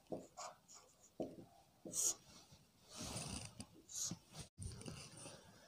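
Faint scratchy strokes of a marker pen writing a short heading on a white board, then longer strokes as the heading is underlined.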